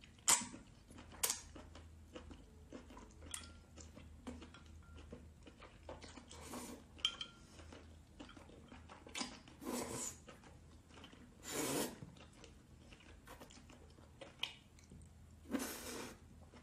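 Wet slurping and sucking as a sauce-coated octopus tentacle is drawn into the mouth, with sharp lip smacks and small wet clicks in between. Four louder slurps stand out, the longest about two thirds of the way through.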